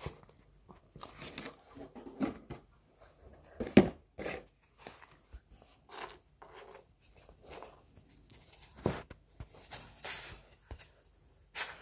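Irregular wooden knocks, clicks and scrapes as a dog noses and paws at a wooden treat-puzzle board, moving its round wooden plugs in their holes; the loudest knock comes about four seconds in.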